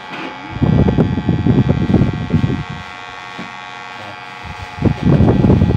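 Electric hair clipper running with a steady buzz, pressed against the side of a head behind the ear: two spells of loud, rough rasping as it cuts through the hair, starting about half a second in and lasting about two seconds, then again near the end.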